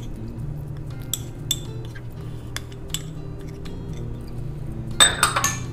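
Metal spoon scraping tahini out of a small ceramic bowl and tapping against the bowls: light clicks here and there, then a quick cluster of sharp, ringing clinks near the end. Faint background music underneath.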